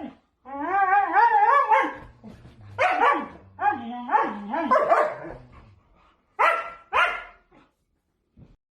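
Siberian husky vocalising in a string of wavering calls that rise and fall in pitch: one long call about half a second in, several more in the middle, and two short ones near the end.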